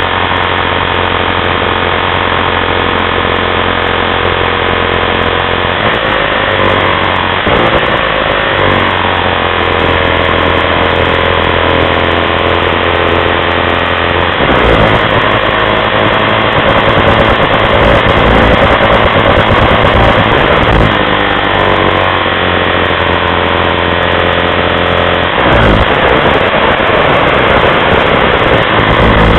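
Snowmobile engine running close by, mostly near idle, with the revs rising and falling several times. It gets louder about halfway through.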